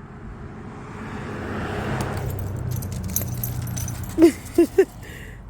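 A vehicle passes, its engine hum and tyre noise swelling to a peak about two seconds in and then fading, with metallic jingling and clicking through the middle. Near the end come three short, high yelp-like sounds.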